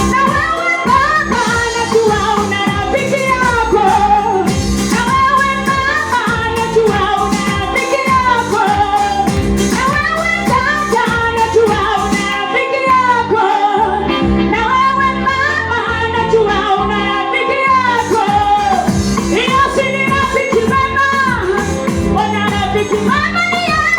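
A children's school choir singing a song over instrumental backing with a steady beat.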